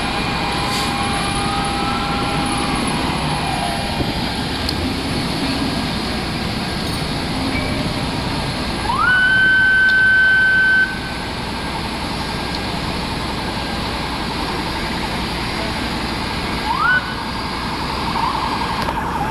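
Fire department emergency sirens over the steady running of idling fire apparatus: a siren rising and falling near the start, then about nine seconds in a siren climbs sharply to one loud steady tone held for about two seconds before cutting off, and a short rising blip near the end.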